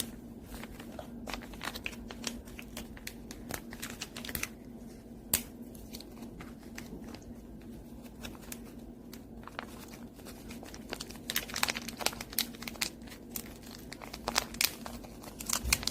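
Plastic food packets crinkling and being torn open, with irregular crackles and clicks that grow busier in the last few seconds and one sharp click about five seconds in. A faint steady low hum runs underneath.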